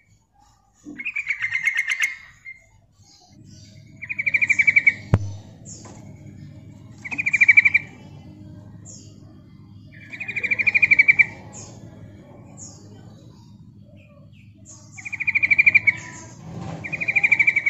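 A caged female yellow-vented bulbul gives its call: a rapid, bubbling chatter repeated six times, each phrase about a second long and a few seconds apart. This is the female calling to draw in males. A faint low hum runs underneath, and there is a single sharp click about five seconds in.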